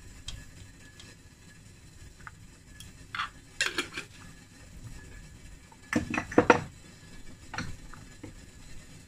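Metal kitchen utensils clinking and clattering against steel cookware: a few clinks a third of the way in, a louder clatter about two thirds in, then one more clink.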